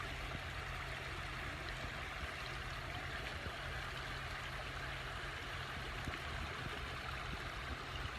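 Running water, a stream flowing with a steady, even rush.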